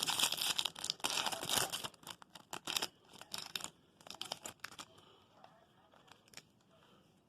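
Foil Yu-Gi-Oh booster pack wrapper being torn open and crinkled: loud continuous crackling for about two seconds, then shorter crinkles until about five seconds in, when it falls to faint handling clicks.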